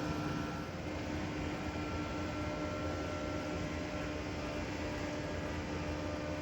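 Steady mechanical hum with a constant low tone over even background noise, unchanging throughout.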